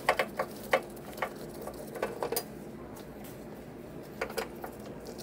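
Light metallic clicks and ticks of a 2.5 mm T-handle hex key working screws out of a printer's sheet-metal side panel, in three short clusters: in the first second, about two seconds in, and near the end.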